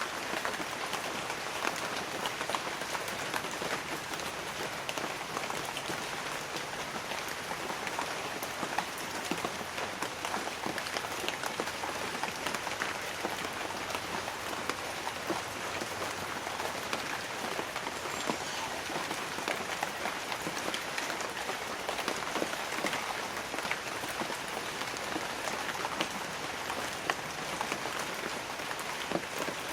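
Light rain falling on banana leaves: a steady hiss of many small drop hits, with no thunder.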